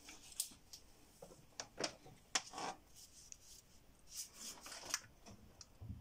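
Faint scattered clicks and short rustles of hands handling wires, heat-shrink tubing and tools.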